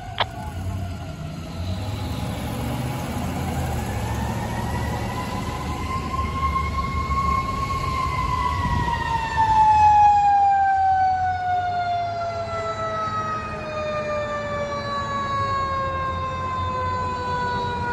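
Fire engine siren winding up slowly to a peak, then winding down in a long, steadily falling wail, over the low rumble of the approaching fire engine's engine.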